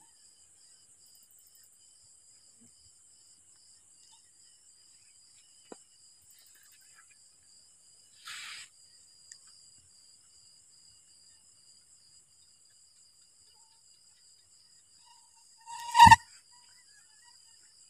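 Crickets chirring steadily at night. A short hiss comes about eight seconds in, and a loud, sharp, pitched sound follows near the end.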